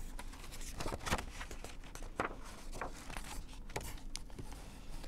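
Faint rustling and a few soft taps of a picture book's paper pages being turned and handled.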